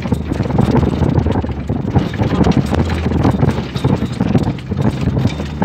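4x4 vehicle's engine running steadily, heard from inside the cab, with constant rattling and knocking as it jolts over a rough dirt track.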